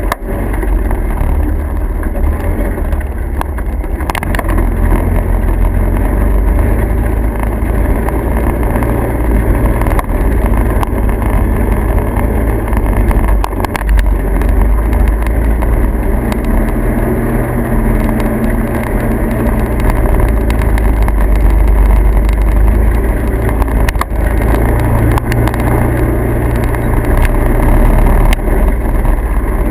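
Motor vehicle running: a loud, steady low rumble.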